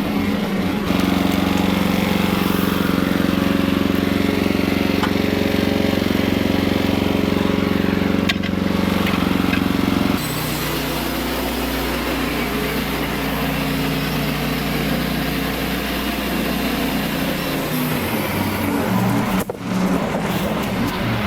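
LX55 band sawmill's engine running steadily, its note shifting abruptly about halfway through and changing again near the end, with a brief drop shortly before the end.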